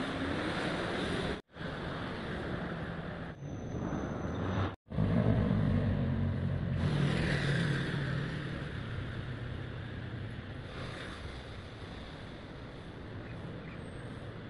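Steady city street traffic noise, a rumble of passing motor vehicles that is loudest about five to eight seconds in. The sound cuts out for an instant twice in the first five seconds.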